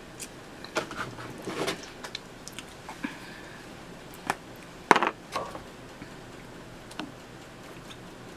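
A plastic gallon water jug being handled and its cap twisted open: a scatter of light crinkles and clicks, the loudest a sharp click about five seconds in.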